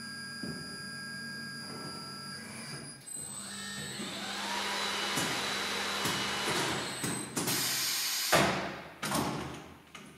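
Automatic tyre changer running as a soft tyre is demounted: a steady motor hum with whining tones, then a growing mechanical rush as the tyre is worked off the rim. A loud, sudden rush of noise comes just after eight seconds, then dies away in steps.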